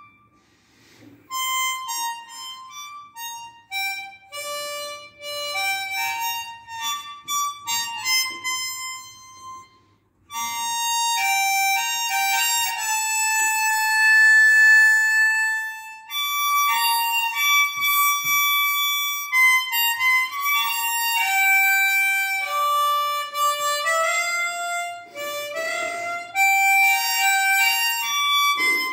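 Harmonica played solo with cupped hands, a melody of held single notes. A short break comes about ten seconds in, followed by a long held note.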